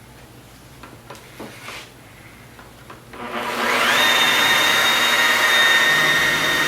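Electric dual-action polisher with a wool polishing pad starting up about three seconds in. Its motor whine rises in pitch for about a second, then runs steady and high.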